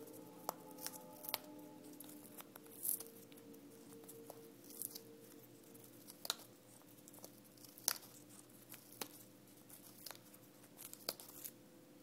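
Blue-fronted amazon parrot tearing and crunching at a shreddable chew toy with its beak, giving irregular sharp snaps and crackles, the loudest about three seconds in and again near eight seconds.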